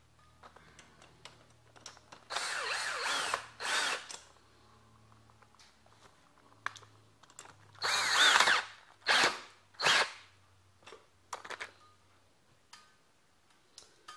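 Power drill with a socket extension spinning a mini bike's rear axle nut in five short bursts, each a second or less, its whine rising and falling in pitch within each burst.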